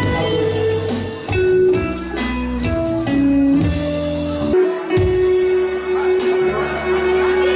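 Band music without singing: a melody of held notes over bass and drums, with one long note held from about halfway through.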